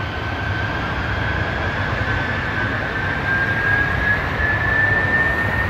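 Airbus Beluga's jet engines running: a steady rush over a low rumble, with a whine that climbs slowly in pitch.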